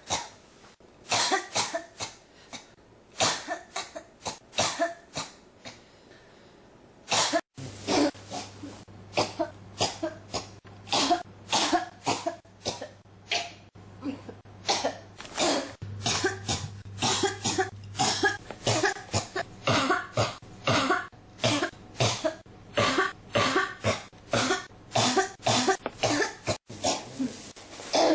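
A person coughing in repeated fits of short coughs. A few coughs come early, then a short lull, then long runs of rapid coughs one after another, with a steady low hum underneath from about seven seconds in.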